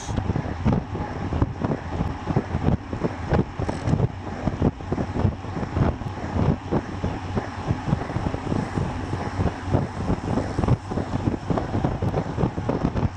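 Wind rushing and buffeting hard over the microphone of a camera on a road bicycle moving at about 53 km/h, in steady irregular low thumps with no letup.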